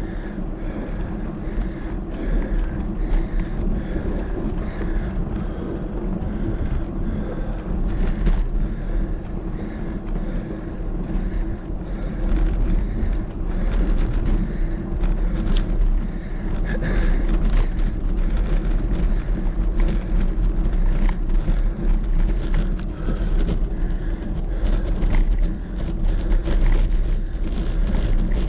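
Steady low wind rumble on the microphone of a camera carried on a moving bicycle, over road and tyre noise from the climb, with scattered light clicks.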